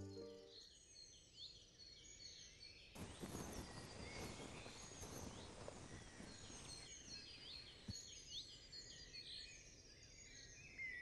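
Small birds chirping and twittering faintly and repeatedly over quiet outdoor ambience. A soft hiss of noise rises for a few seconds in the middle.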